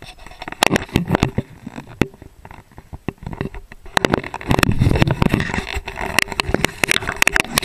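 Handling noise and wind on a shotgun-mounted microphone as the gun is swung up toward the sky: rapid, irregular knocks, scrapes and rustling, thickest and loudest about four to six seconds in.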